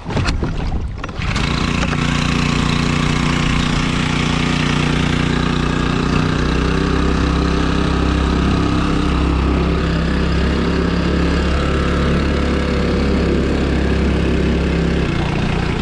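Small air-cooled four-stroke 4 HP outboard motor, lawnmower-like, starting up about a second in and then running steadily. Its low note deepens slightly around six seconds and shifts back near the end.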